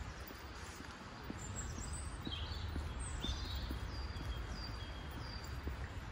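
Outdoor street ambience: a steady low rumble with small birds chirping in the trees, the chirps clustered in the first half. Faint footsteps on the pavement tap about twice a second.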